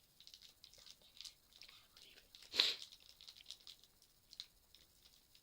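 Small rustles and clicks of toy packaging being handled, with one short, louder tear about two and a half seconds in.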